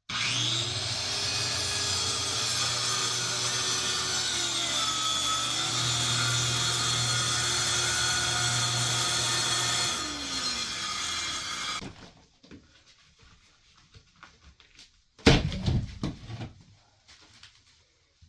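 Electric power saw cutting through wood for about ten seconds, its motor pitch sagging briefly midway under load, then winding down after the cut. A few seconds later comes a short clatter of wood knocking.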